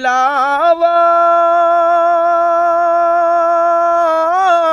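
A man singing a naat without accompaniment. After a short ornamented run he holds one long, steady high note for about three seconds, then lets it waver near the end.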